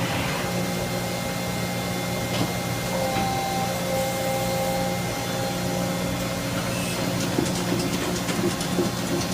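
1999 Niigata SPN50 CNC horizontal machining center running: a steady machine hum with a low drone and a faint whine that comes and goes, with light clicking in the last couple of seconds.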